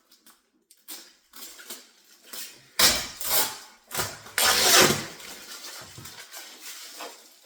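Packaging being handled while a new refrigerator is unpacked: noisy scraping and rustling bursts, loudest about three seconds in and again near the middle, then softer rustling.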